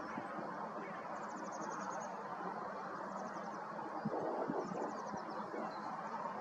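Small songbirds singing high, rapid trills, heard three times, over a steady background hiss.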